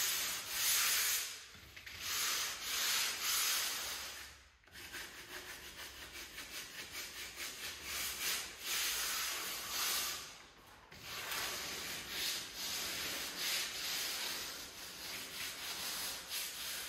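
Hand tool rubbing back and forth on a hard surface in repeated strokes: a few long strokes at first, then quick short strokes about four a second from about five seconds in, with a brief pause near ten seconds.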